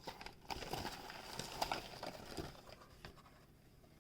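Faint rustling and light irregular clicks of plastic blister-pack packaging being handled, dying down toward the end.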